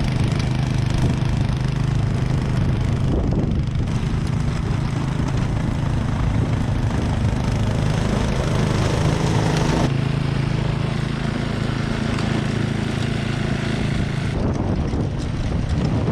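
Snowblower engine running steadily while clearing snow. Its sound shifts a few times as the load or direction changes.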